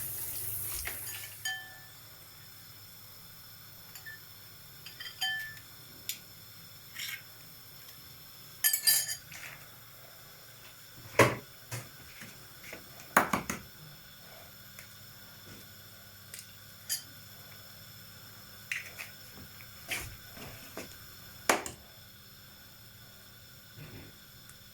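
Running tap water stops about a second in, followed by scattered clinks and knocks of pots, dishes and utensils being handled, two louder knocks near the middle.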